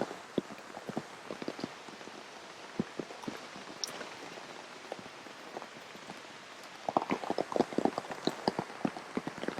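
Heavy rain falling, with many separate large drops striking close by over a steady hiss; the drop strikes grow denser and louder about seven seconds in.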